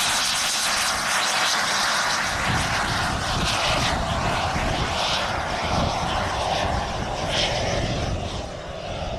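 Jet engines of a giant-scale radio-controlled model English Electric Lightning running at high power on its takeoff roll: a steady, loud rushing roar, easing a little near the end.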